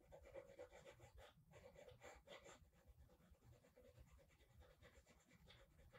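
Very faint scratching of a graphite pencil shading on paper in quick, irregular short strokes.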